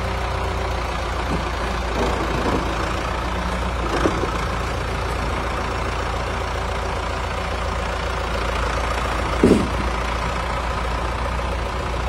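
Ford 6810 tractor's diesel engine running steadily as it pulls slowly forward with a loaded-up grain trailer hitched on. There are a few short knocks, the loudest about three-quarters of the way through.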